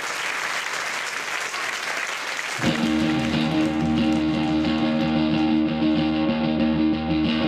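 Studio audience applauding, then about two and a half seconds in an electric guitar starts playing, with sustained ringing chords over a low drone as the applause fades.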